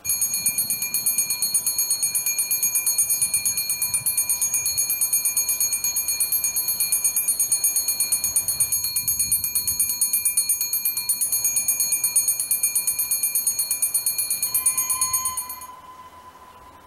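Railway level-crossing warning bell ringing rapidly and evenly, then cutting off near the end. It warns of a train approaching the station.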